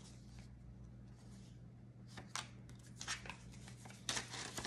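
Paper banknotes rustling as they are handled and flipped through by hand, faint, in a few brief flurries, the last ones near the end.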